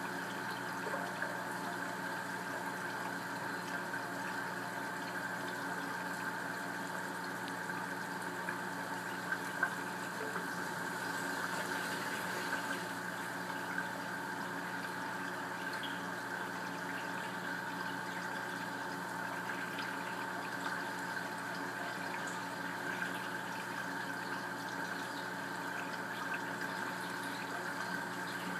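Reef aquarium's pumps and water circulation running: a steady hum with a wash of moving water, unchanging throughout.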